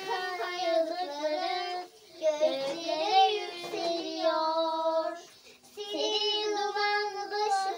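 A child singing a melody unaccompanied, in long held notes, in three phrases separated by short pauses.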